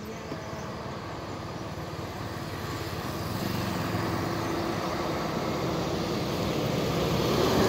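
Road traffic: a small car drives past about halfway through, while a truck's engine grows steadily louder as it approaches.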